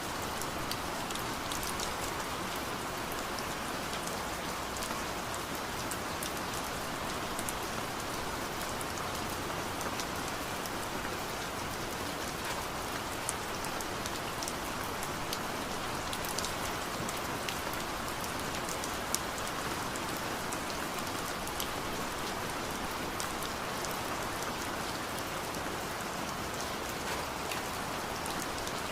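Steady rain falling, with a continuous hiss and many scattered sharp drop ticks.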